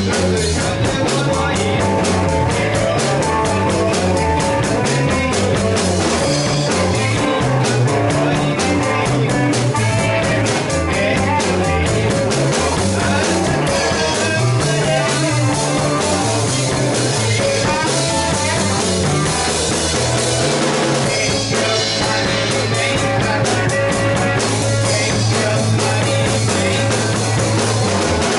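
A live rock band playing electric guitars over a drum kit, with a moving low line beneath and steady cymbal strokes; the low part holds one note for the last few seconds.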